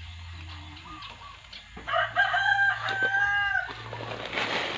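A rooster crows once, a long call of about two seconds starting about two seconds in. Near the end comes rustling and scraping as hands dig into the soil in a woven cement sack.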